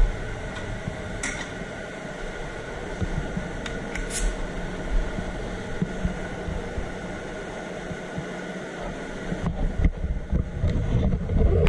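Spray booth ventilation fans running, a steady hum and rush of air, with a couple of light clicks in the first few seconds.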